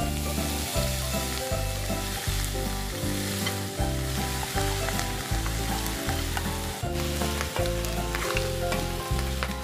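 Boiled pork hock sizzling in hot oil with sautéed onion and garlic, stirred and scraped with a wooden spoon near the end, over background music with a steady bass line.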